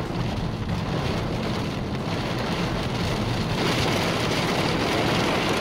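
Heavy rain pelting a car's windshield, heard from inside the cabin, over the car's low steady rumble. The rain gets louder about three and a half seconds in.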